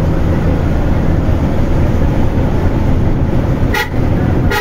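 Steady low rumble of a moving vehicle crossing the bridge, with two short toots near the end.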